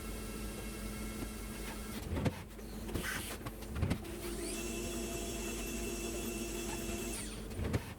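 Hurco BX40i CNC milling machine running: a steady hum, a few sharp clunks, then a motor whine that rises in pitch, holds steady for about three seconds and falls away again.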